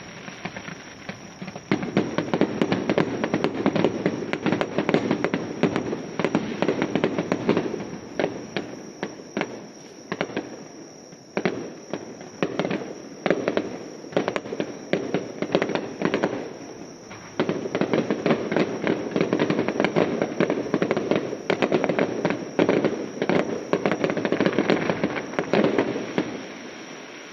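Aerial fireworks going off in rapid, dense volleys of bangs and crackles. Two heavy barrages come with a thinner spell of separate bangs between them, and the sound dies away near the end.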